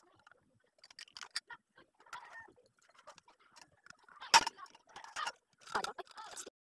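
Tubes and plastic connectors of a clothes rack clicking and knocking together as it is assembled by hand, with a sharp knock about four seconds in and scraping after it.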